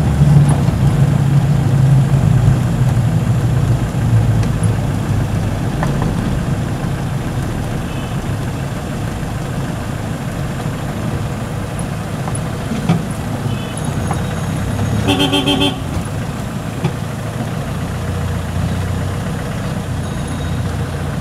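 Street traffic heard from a moving vehicle: a steady low rumble of engine and road noise, with one horn honk lasting about a second about two-thirds of the way through.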